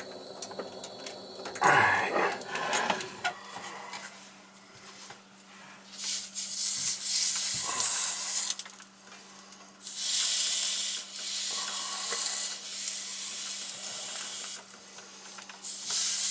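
Wet rag pressed on a hot, freshly soldered copper pipe joint, hissing and sizzling in bursts as the water flashes to steam. The rag cools the joint quickly. A hiss starts about six seconds in, a longer one follows from about ten seconds, and another begins near the end.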